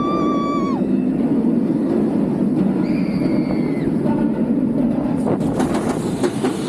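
Bolliger & Mabillard inverted roller coaster train running along its steel track with a steady rumble and rushing air. Riders let out two held whoops, one at the start and one about three seconds in, and a run of sharp clacks comes near the end.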